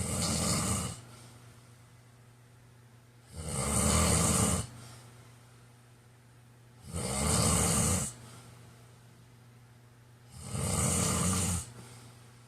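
A man snoring in his sleep: four snores about three and a half seconds apart, each lasting about a second.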